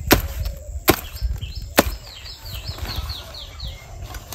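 Three sharp chops of a sickle blade hacking into the thick stalk of a garden cabbage, about a second apart. A bird calls behind them in a quick run of falling chirps.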